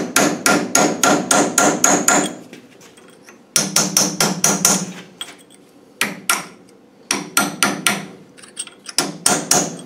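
A hammer strikes a thin steel wedge driven behind a tapered roller bearing on a Land Rover LT77 gearbox layshaft, working the bearing off its seat without a puller. The blows come in five quick runs of about four a second, with short pauses between the runs, and each blow gives a bright metallic ring.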